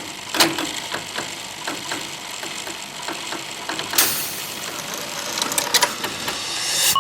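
Clockwork mechanism ticking and clicking, a rapid run of small clicks about four a second, with a louder click about four seconds in and a quick flurry of clicks near the end.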